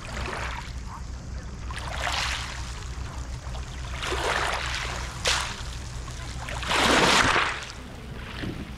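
Small waves lapping on a pebble beach, each wash of water hissing over the stones every couple of seconds, the biggest about three-quarters of the way through.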